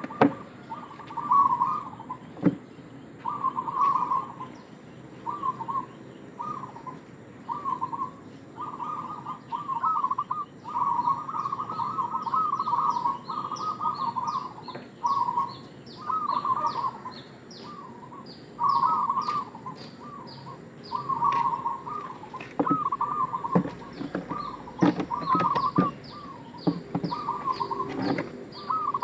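Zebra dove (perkutut) singing its rolling, bubbly coo phrases again and again, with short pauses between them. From about a third of the way in, a higher bird chirps rapidly behind it, and there are a few sharp clicks.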